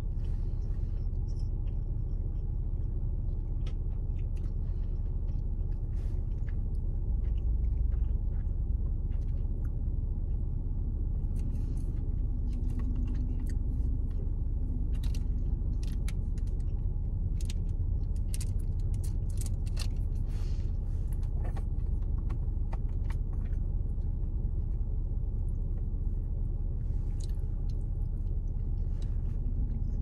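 A person chewing sushi, with scattered small clicks of wooden chopsticks and food packaging, over a steady low rumble inside a car.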